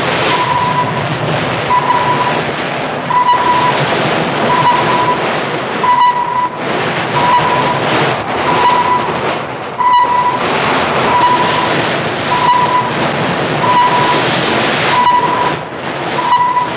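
ASDIC sonar pinging: a short, clear tone repeating very regularly about every 1.3 seconds as the warship closes on a submerged U-boat. Under it runs the steady rush of the ship's bow wave and hull through the sea.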